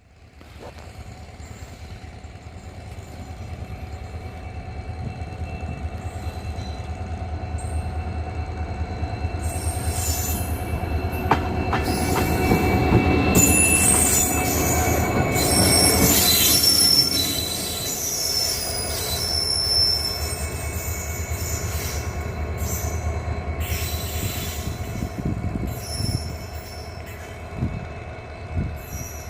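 Indian diesel locomotive engine chugging with a low rumble, growing louder to a peak about halfway through and then easing off, with high thin squeals over it around the middle.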